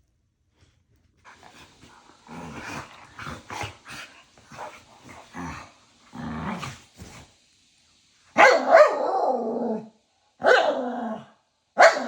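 Two small dogs growling and grumbling at each other in short back-and-forth bursts, then breaking into louder yapping barks about eight seconds in: a playful squabble, not a real fight.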